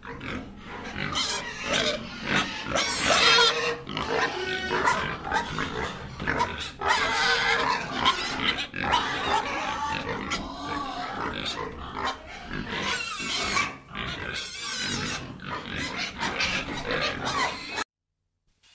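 A group of piglets grunting and squealing in a busy, overlapping chorus. The sound breaks off abruptly near the end.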